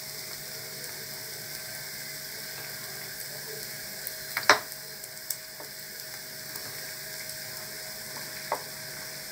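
A hand squeezing and mixing egg-soaked bread cubes in a plastic bowl: soft wet squishing over a steady hiss, with a few sharp clicks, the loudest about four and a half seconds in.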